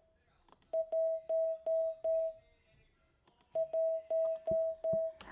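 Morse code for the digit 1 (dit-dah-dah-dah-dah) sent twice as a steady mid-pitched CW sidetone from an Icom IC-7300 transceiver. Each element is keyed on with a sharp click from the key.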